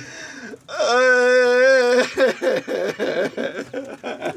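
A man's voice wailing in grief: one loud, long, wavering cry about a second long, then broken crying sounds without clear words.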